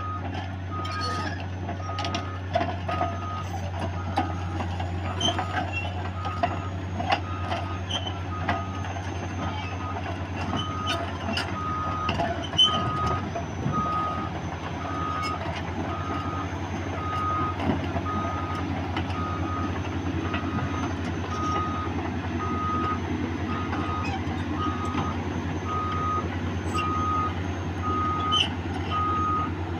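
Heavy equipment's reversing or travel alarm beeping steadily at one pitch, about once a second, over a large diesel engine running steadily, with scattered metallic clanks and knocks.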